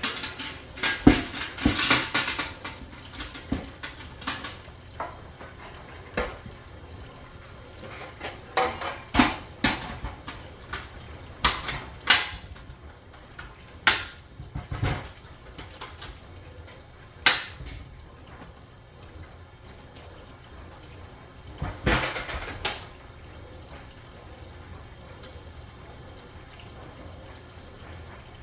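Irregular clattering and knocking, with two longer hissing bursts, about two seconds in and again around twenty-two seconds in.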